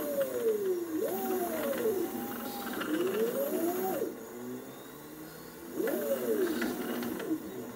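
Stepper motors of a CNC scroll-saw rig whining as they drive the rotary table and linear axes, the pitch rising and falling in repeated overlapping arcs as they speed up and slow down. There is a quieter lull about four seconds in before the whine returns.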